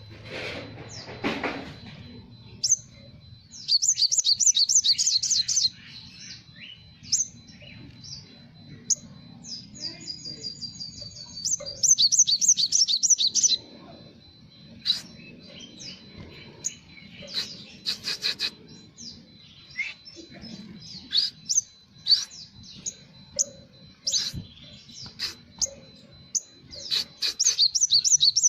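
Olive-backed sunbird (sriganti) singing vigorously: high, fast trilled bursts three times, with many short sharp chirps between, including phrases learned from Java sparrows. A faint steady high tone runs underneath.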